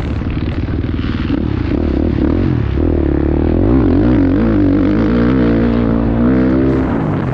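Motocross dirt bike engine, heard from on board, revving hard and easing off again and again as the rider works the throttle around the track. The pitch rises and falls repeatedly and climbs highest in the middle.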